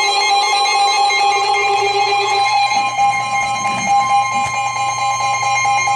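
Emergency-alert broadcast audio: synthesized electronic music tones stepping through a simple melody, with a steady high alert tone that grows stronger about four seconds in, ahead of the next warning.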